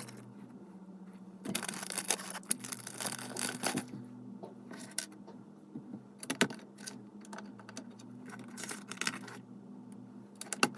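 Small plastic Lego pieces rattling and clicking as they are handled, sorted and pressed together: a busy stretch of rattling a second or two in, then scattered single clicks.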